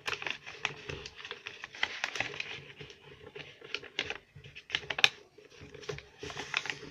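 A sheet of notebook paper being folded and creased by hand: a run of quick rustles and crisp ticks, with one louder click about five seconds in.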